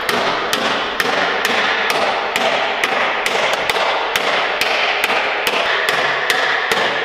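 Hammer blows on the bent sheet-metal front wing of a Honda Civic, beating the crash-damaged panel back into shape. The strikes are sharp, even and steady, about two a second.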